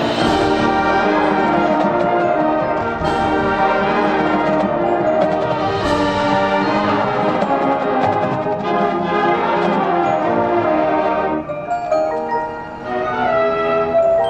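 A high school marching band's brass section playing full, sustained chords, with sharp percussion strikes about every three seconds early on. It thins out briefly near the end before lighter brass notes resume.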